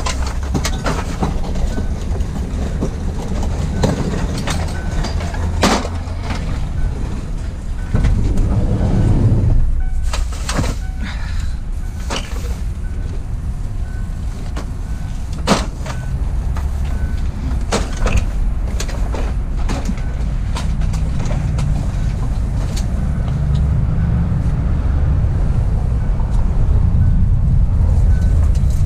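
Heavy vehicles or yard machinery running with a steady low rumble, with scattered metal clanks and knocks of scrap being handled and a faint reversing beeper repeating in the background.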